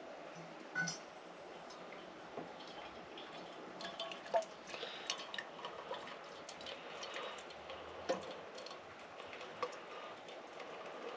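Steaming hot water poured from a small metal kettle: a light trickle of liquid with scattered clinks and taps of metal cookware, the sharpest about four seconds in.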